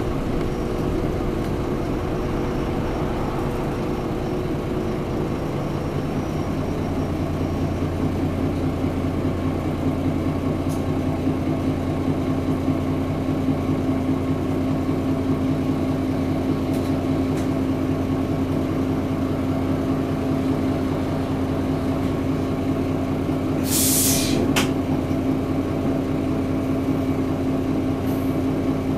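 Mitsubishi Fuso Aero Midi MK bus's 6M61 six-cylinder diesel, heard from inside the cabin, coming off as the bus rolls to a halt and then idling steadily. Late on comes a short hiss of compressed air lasting about a second.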